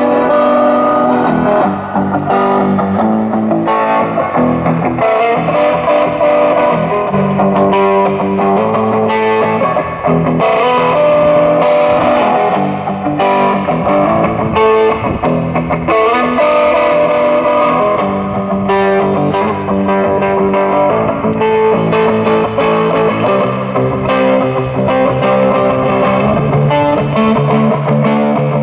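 Electric guitar music with a distorted tone, playing steadily.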